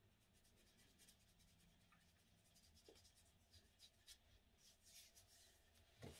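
Near silence, with faint soft skin-on-skin rubbing and light ticks as fingers work primer into the back of a hand, mostly in the second half.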